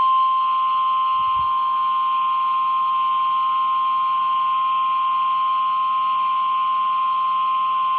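NOAA Weather Radio warning alarm tone: a single steady high tone held for about eight and a half seconds, signalling that a warning message follows, heard over the radio with a light hiss.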